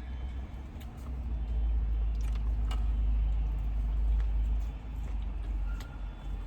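Someone chewing food quietly, with a few faint mouth clicks. Under it a deep rumble swells for about three seconds, then fades.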